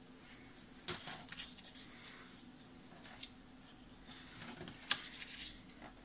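Faint rustling and creasing of coloured cardboard as fingers fold its small tabs along the crease lines and press them flat, with a few short, sharper crackles.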